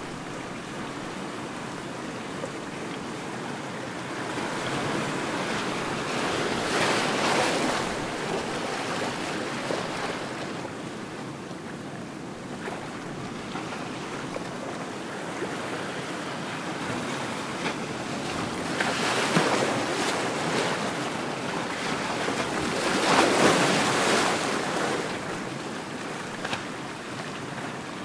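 Ocean surf: a steady wash of waves, swelling into louder breaking waves several times, with some wind.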